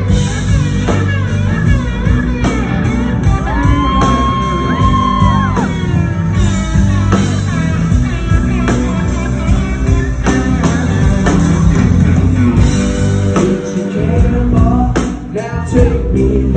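Live rock band playing loudly: two electric guitars over bass and drums, with a long held high note about four seconds in.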